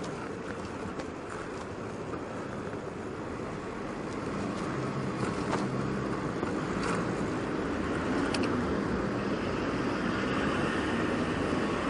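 Steady street and traffic noise heard from a moving bicycle, with road and wind rush, growing louder about a third of the way in. A few faint clicks are scattered through it.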